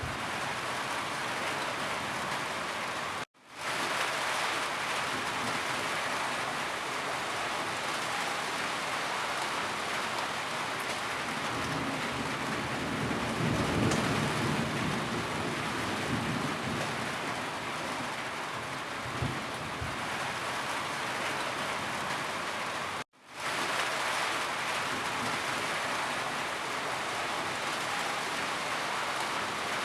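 Steady rain falling, an even hiss, with a low rumble of thunder swelling about halfway through. Twice the sound drops out to silence for an instant and fades quickly back in.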